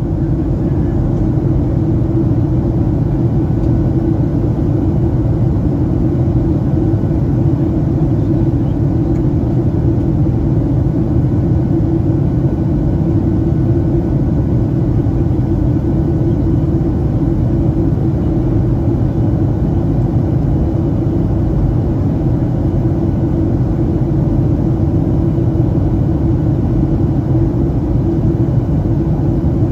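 Steady cabin noise inside a Boeing 737-800 in flight: an even low rumble of engines and airflow, heard from a window seat.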